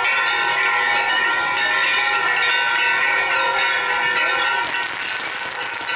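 Firework fountains shooting showers of sparks with a continuous hissing rush, and steady metallic ringing tones held over it. The sound eases slightly near the end.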